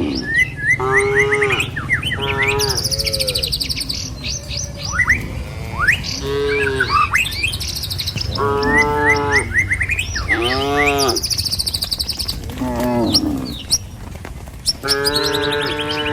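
Cattle mooing again and again, about seven separate calls of half a second to a second and a half, some of them high-pitched, with birds chirping and trilling in between.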